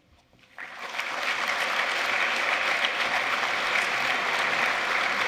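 Audience applauding, starting about half a second in and building quickly to a steady level.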